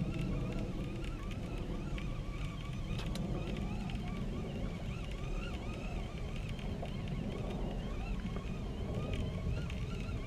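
Spinning fishing reel being cranked, its gears giving a faint whine that rises and falls with each turn, a few times a second, over a steady low rumble.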